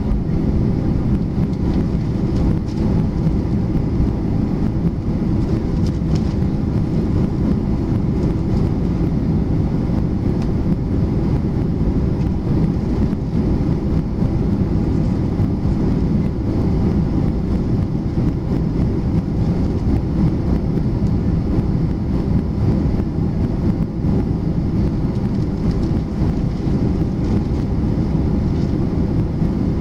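Steady low rumble of a Boeing 737-400's CFM56 jet engines and airflow heard inside the passenger cabin, running evenly without spooling up or down.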